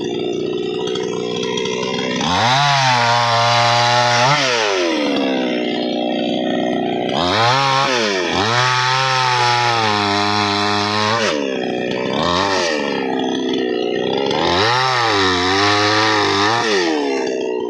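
Two-stroke chainsaw engine revved to full throttle three times, held high for two to three seconds each time and dropping back to idle in between, with a couple of short throttle blips in the gaps.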